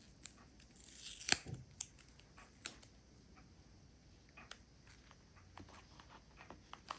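Faint handling of paper craft pieces: small rustles and scattered light clicks, with a short rustle ending in a sharper click about a second in.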